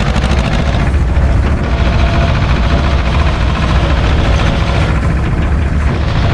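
SAME tractor's diesel engine running steadily under way, towing a trailer, with rattling and knocking from the trailer over the rough dirt track.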